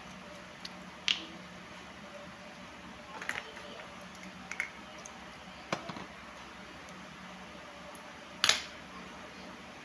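Small scattered clicks and taps of metal watch parts and repair tools being handled during a watch battery change, about five in all, the loudest about eight and a half seconds in, over a faint steady hum.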